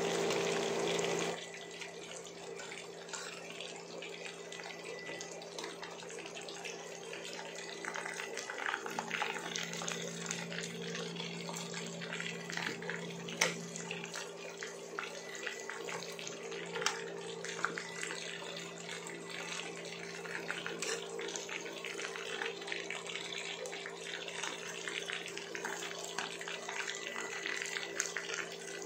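Chicken pieces frying in hot oil in a pan: a steady sizzle with scattered pops and crackles, louder for the first second or so. A steady low hum runs underneath.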